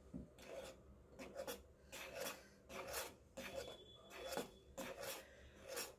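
Metal spoon scraping and stirring thick banana and jaggery payasam around a stainless steel pot, in a steady rhythm of about two strokes a second.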